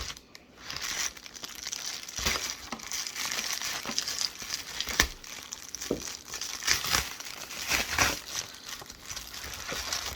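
Packaging crinkling and rustling continuously as it is handled and opened, with a few sharper clicks along the way.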